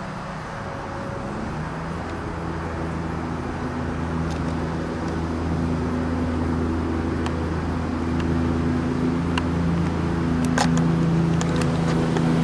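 Steady engine drone with a low hum and several even overtones, coming in about two seconds in and growing gradually louder, with a few sharp clicks near the end.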